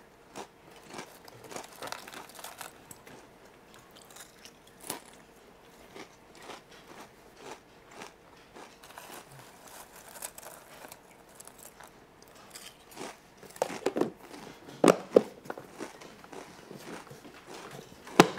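A person chewing and crunching a snack, with small crackling bites throughout. A few louder knocks come in the last third.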